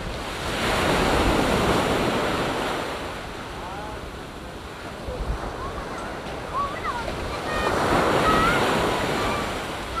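Sea waves breaking and washing up a sandy beach, swelling in twice: about a second in and again about eight seconds in. Wind rumbles on the microphone.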